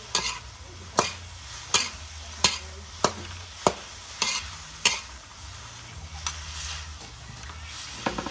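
Stir-frying noodles and greens in an aluminium wok: a metal ladle and spatula knock and scrape against the pan about every 0.6 seconds, over a steady sizzle. After about five seconds the knocks get fewer and softer.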